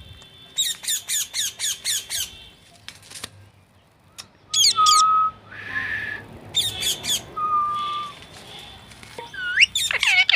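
Parrot squawking: a quick run of about seven sharp calls, then separate squawks with two short level whistles, and a burst of rising calls near the end.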